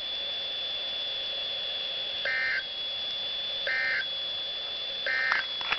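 NOAA Weather Radio broadcast sending three short warbling data bursts, the EAS/SAME end-of-message code that closes the weekly test. Each burst lasts about a third of a second, spaced a bit over a second apart, over a steady high whine and hiss from the radio.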